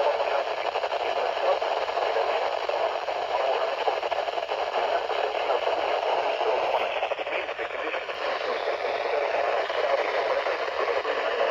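Steady radio static hissing from a weather-radio receiver, with no clear voice coming through.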